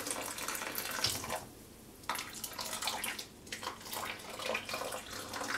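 Hot sparge water poured from a plastic measuring jug onto the mash in a bucket, splashing and trickling as the grain bed is topped up. The pour breaks off twice, briefly, about one and a half and about three seconds in.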